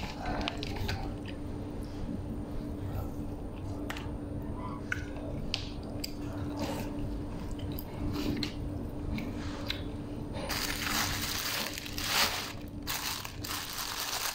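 A person chewing and biting food close to the microphone, with short crunchy clicks. From about ten seconds in, a louder rustling of cloth or packaging as an arm moves across the phone.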